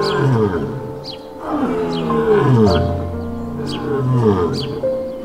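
Lion roaring: a series of long, moaning calls that fall steeply in pitch, about three in a row, over soft held music tones.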